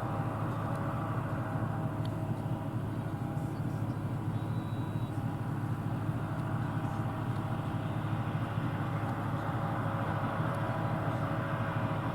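John Deere combine running steadily while harvesting soybeans: an even, deep engine drone with a steady higher whine from the machinery above it.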